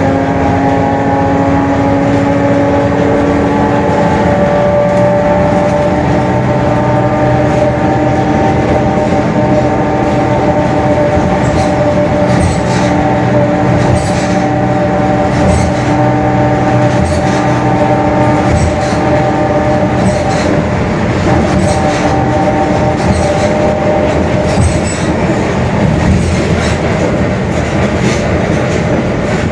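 Mercedes-Benz OF-1721 city bus under way, heard from on board, its differential giving a steady gear whine: several held tones over the running and road noise that drift slightly with speed. The whine is the differential growl the bus is known for. Light rattling clicks join from about halfway through.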